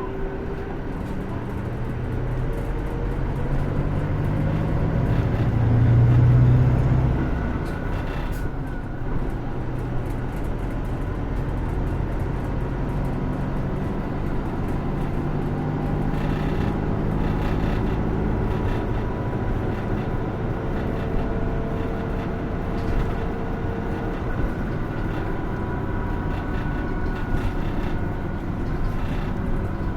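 Cabin sound of a Hino Rainbow II medium-size diesel route bus under way. The engine note rises as the bus pulls harder, loudest about six seconds in, then eases off. It settles into a steady cruising drone with road noise and faint whining tones.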